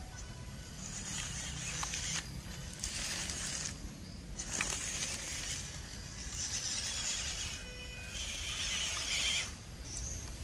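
MN90 RC crawler's electric motor and gears whining in short spurts as it drives through grass, starting and stopping with the throttle.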